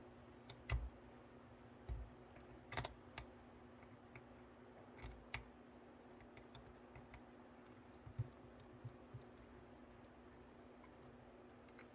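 Sparse light clicks and taps of small plastic and metal parts of an HO-scale model locomotive being handled as its front truck is taken off, over a faint steady hum.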